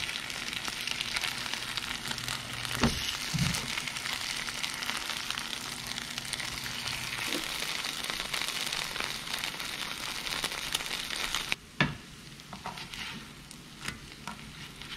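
Kimchi pancake batter sizzling as it fries in oil in a pan, with two low thumps about three seconds in. Just before twelve seconds the sizzle drops away abruptly after a thump, leaving only a few light clicks.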